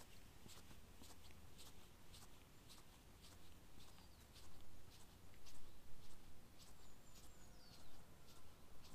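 Faint small birds calling: quick, high ticking notes throughout, with a few short, high falling chirps about four and seven seconds in.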